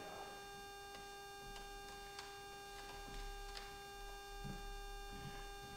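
Quiet room with a steady electrical hum, a few faint clicks, and soft footsteps on a wooden floor near the end.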